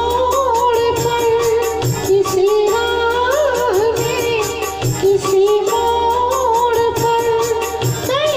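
Hindi film-style song: a high, held melody sung into a handheld microphone over a recorded backing track with a steady beat and a pulsing bass.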